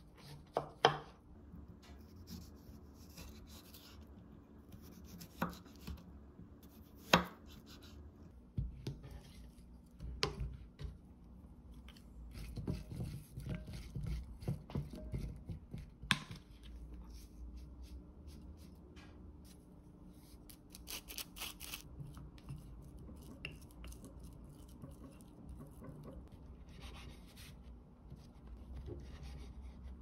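Kitchen knife slicing a cucumber on a wooden cutting board: crisp cuts and sharp knocks of the blade on the board, with a quick run of knocks around the middle, over a low steady hum. Later, thin cucumber slices are handled in a glass bowl, with a few light clicks and rustles.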